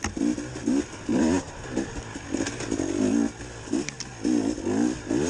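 A 2019 KTM 300 XC-W TPI's single-cylinder two-stroke engine revving in quick on-off throttle bursts, two or three a second, its pitch rising in each burst.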